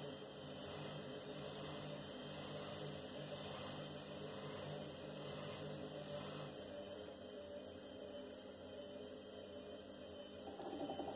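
A steady low electrical hum, with a faint high chirp repeating about every three-quarters of a second for the first six seconds or so, and a buzzy rattle starting near the end.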